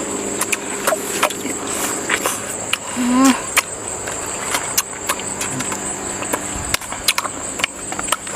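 Steady high-pitched insect drone, with scattered sharp clicks and knocks and a short voice sound about three seconds in.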